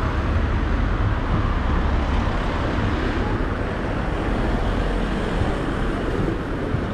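City street traffic: a motor vehicle's low engine rumble with tyre noise, slowly easing off.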